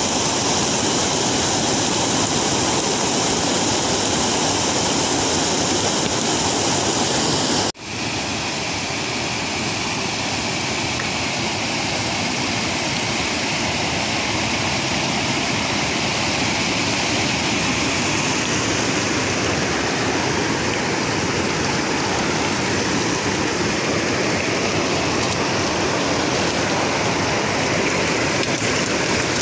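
Steady rush of flowing river water. It cuts out for an instant about eight seconds in and comes back slightly duller.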